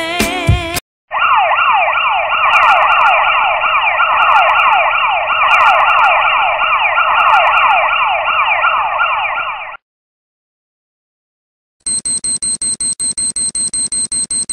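Siren-style alarm sound effect: a loud wail made of a rapidly repeating falling sweep, lasting about nine seconds and cutting off abruptly. After a short silence comes fast, high-pitched electronic beeping.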